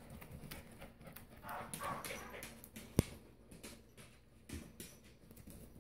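Small dogs' claws ticking on a hardwood floor as they move about, with one sharper click about three seconds in.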